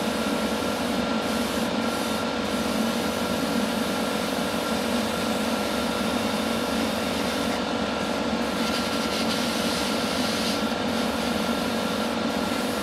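Paint spray booth extractor fan running with a steady hum, with the hiss of an airbrush spraying paint. The hiss grows brighter for about two seconds, starting about nine seconds in.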